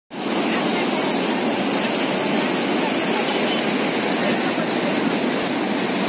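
Steady rush of white water pouring over rock ledges and through rapids in a river waterfall, a continuous even roar.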